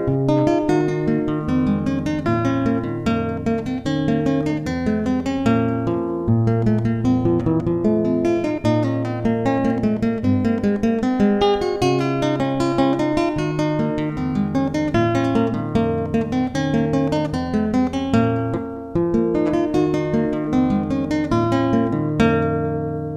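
Background music: acoustic guitar, picked and strummed over a moving bass line. The notes ring out and die away near the end.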